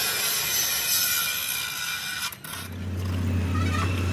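Machine noise: a steady high hiss that drops out about two and a half seconds in, followed by a steady low motor hum.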